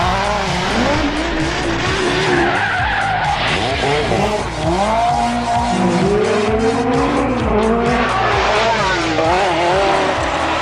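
Group B rally car engines revving up and down in repeated rising and falling sweeps, with tyre squeal.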